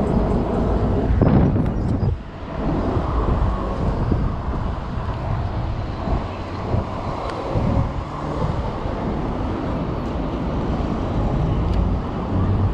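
Steady wind and traffic noise on a body-mounted action camera's microphone while riding an e-bike in city traffic. There is a louder swell a little over a second in that drops off sharply at about two seconds.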